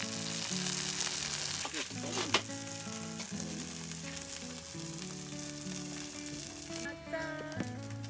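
Chive and seafood pancake sizzling in hot oil in a frying pan, a steady hiss that drops away near the end. A sharp tap about two and a half seconds in.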